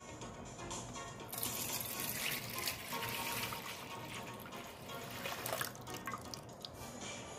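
Soy-sauce brine poured from a plastic measuring jug into a glass bowl, a steady splashing stream starting about a second in, with background music.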